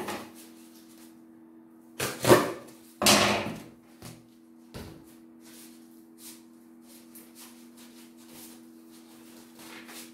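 Corrugated cardboard being handled and moved against a stack of cartons: two loud rustling, scraping noises about two and three seconds in, then a few lighter knocks, over a steady low hum.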